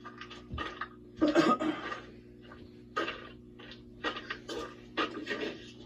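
A steady low hum with about five short, sudden sounds scattered through it.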